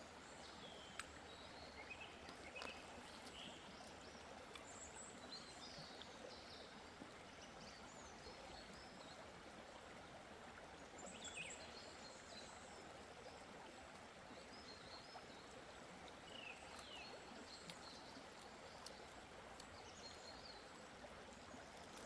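Faint steady rush of a mountain river flowing over stones, with small birds chirping now and then.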